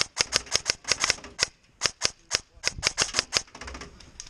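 Airsoft electric rifle (ARES Amoeba fitted with a dual sector gear) firing rapid strings of sharp shots, about six or seven a second, with a pause of about a second in the middle before a second string.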